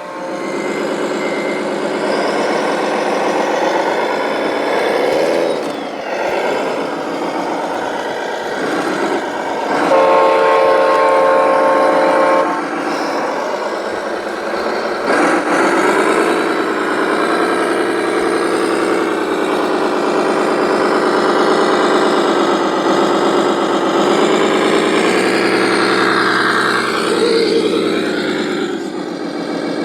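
Electronic engine sound from an RC truck's sound module, a heavy diesel note that rises and falls as the throttle is worked. About ten seconds in, a multi-tone air horn sounds for about two and a half seconds.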